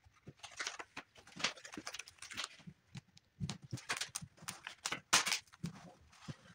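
Paper backing sheet of a large vinyl decal rustling and crinkling in irregular bursts as hands peel and handle it, with a few soft knocks.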